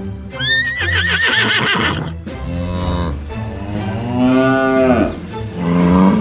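Dubbed animal sound effects: a high, wavering horse whinny about half a second in, then cow moos, a long one rising and falling around four seconds in and a shorter one near the end, over background music.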